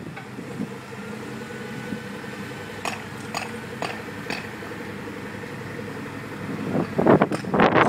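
Volvo wheel loader's diesel engine running steadily while it drags a levelling beam through the sand bed, with four short clicks in the middle. Wind buffets the microphone near the end.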